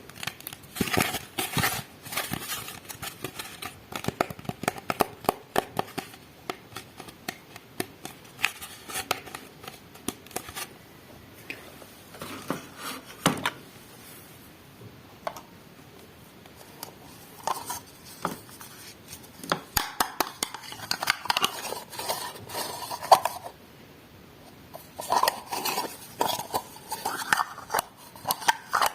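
Small plastic pieces of a miniature toy kitchen set clicking and clattering as they are handled and unpacked: many irregular light taps, busier near the start and near the end.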